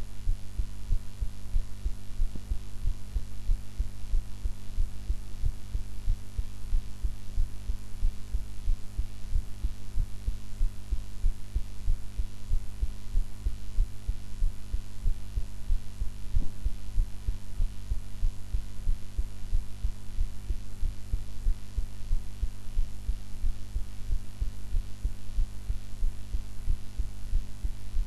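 A woman's heartbeat heard close up: low thuds repeating evenly, over a steady hum that has not been edited out.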